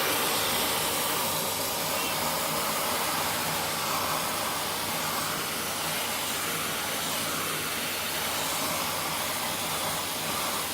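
Vacuum cleaner running steadily, a constant rush of air drawn through the nozzle as it is used to suck a cat's fur.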